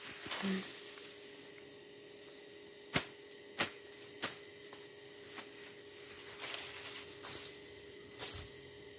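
Distant sharp strikes of a blade slashing weeds by hand: three about half a second apart a few seconds in, and a couple more near the end. Under them, a steady faint high drone of insects.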